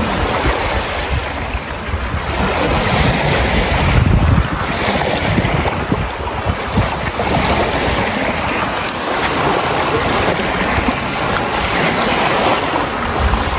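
Small lake waves washing up and breaking on a sand beach, with heavy wind rumble on the microphone that swells and fades, strongest about four seconds in.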